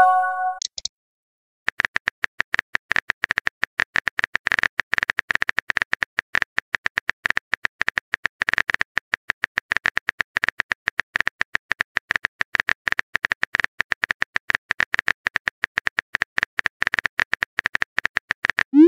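Phone keyboard typing sound effect: a long, rapid, irregular run of light clicks, after a short pitched message tone right at the start.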